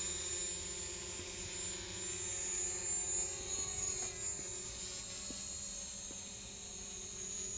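Steady propeller whine and hum of a DJI Mavic Pro quadcopter as it climbs and hovers, a few fixed tones over a low hiss, with small swells in level.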